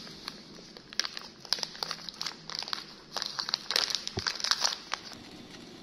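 Plastic snack packet crinkling as a baby monkey handles it, in several bursts of sharp crackles.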